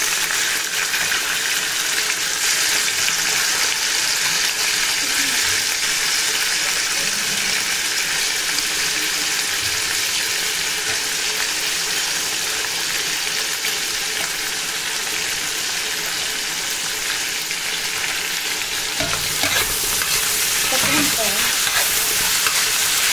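Chopped vegetables (carrots, French beans, cauliflower and peas) sizzling steadily in hot oil in a kadhai, stirred with a flat metal spatula.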